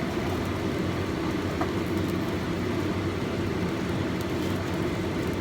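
Steady low rumble with a faint hum, even throughout and without distinct knocks or clicks, like a kitchen appliance running.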